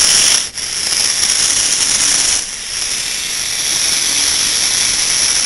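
Small electric drive motors of a hobby robot running, a steady high whirring hiss that drops out briefly about half a second in.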